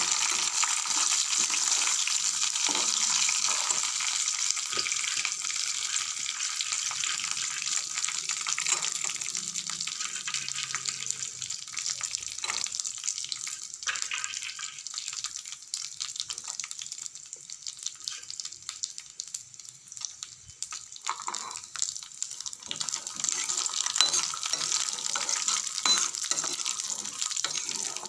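Makhana (fox nuts) and dry fruits frying in hot oil in a pan: a steady sizzle with scattered crackles and clicks. It grows quieter for a few seconds past the middle and picks up again near the end.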